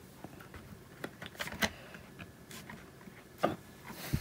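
Rolls of washi tape being picked up and handled in a storage box: a series of light clicks and knocks, loudest about three and a half seconds in and again near the end.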